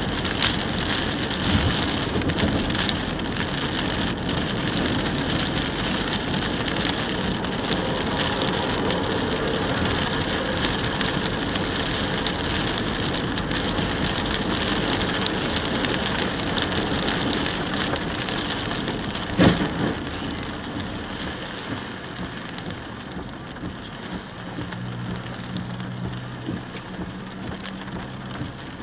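Heavy rain drumming on a car's windshield and roof while driving on a wet highway. About two-thirds of the way through comes one sharp, loud bang, after which the rain noise eases and a low steady hum shows near the end.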